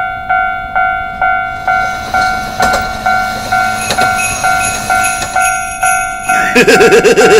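Railroad crossing warning bell ringing in a steady ding-ding, about two strikes a second. Near the end a louder burst of rapid clatter with a wavering tone comes in over it.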